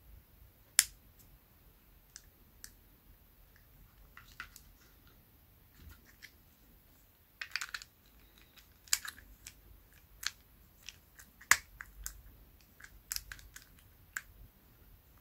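Irregular small clicks and ticks of a precision screwdriver and hard plastic and metal parts of a budget spinning reel being handled during disassembly, with one sharper click about a second in and another about three quarters of the way through.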